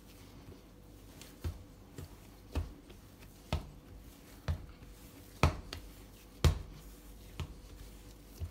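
Soft biscuit dough being kneaded by hand on a benchtop: a dull thud roughly once a second as the dough is pushed down and turned, the two loudest a little past the middle.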